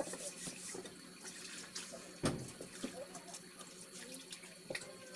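Hands squeezing and turning raw pork pieces in calamansi juice in a bowl, marinating them: wet squelching and small clicks, with one louder knock about two seconds in.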